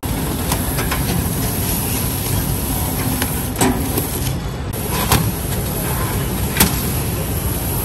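Steady low rumble of a moving vehicle heard from inside, with three sharp knocks or clicks about a second and a half apart in the second half.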